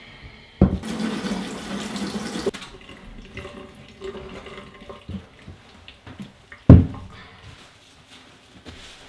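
Water rushing and splashing in a stainless steel kitchen sink as a large ham is rinsed in cold water and lifted out, dying down after about two seconds. Quieter handling sounds follow, and a sharp thump about seven seconds in is the loudest sound.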